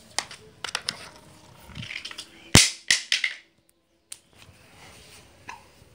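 Broom sweeping a tiled floor corner: a series of sharp knocks and taps against the tiles and wall, the loudest about two and a half seconds in, with short scratchy brushing between them.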